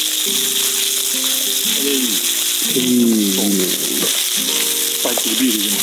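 Chicken thigh pieces sizzling steadily in a hot frying pan, with background music of held low notes over it.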